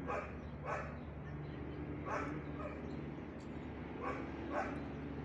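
A dog barking, short yelping barks in pairs about every two seconds, over a steady low hum.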